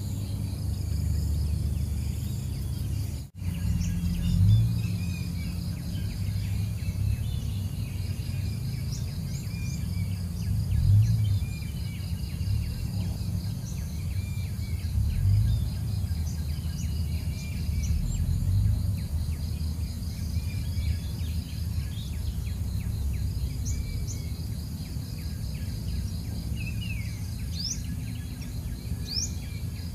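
Outdoor ambience: insects trilling steadily, with scattered bird chirps and a few short rising whistles over a low steady rumble. The sound drops out for an instant about three seconds in.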